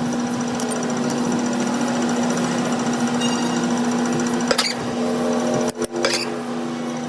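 Workshop machinery running with a steady hum and a rapid mechanical rattle, with a sharp click about two-thirds of the way in and a brief dip in the sound soon after.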